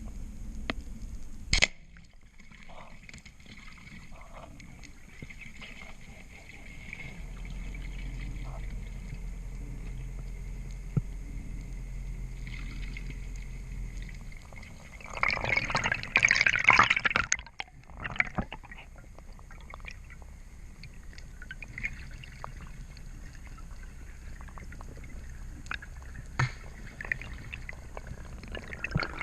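Water sounds recorded underwater during a spearfishing dive: scattered small clicks, with a loud burst of rushing, bubbling water noise about halfway through.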